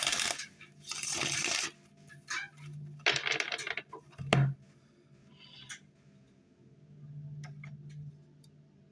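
Tarot cards being shuffled by hand: several short bursts of rustling and clacking, with a single thud about four seconds in, then a few faint clicks.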